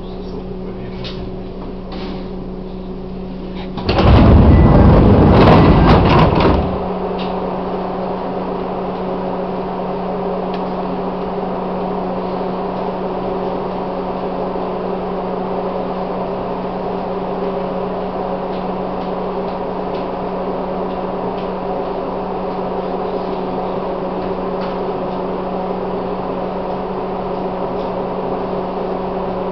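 Chichibu Railway 1000 series electric train standing at a platform with a steady electric hum. About four seconds in, a loud hiss of released compressed air lasts a couple of seconds and cuts off sharply, after which the hum carries on slightly louder.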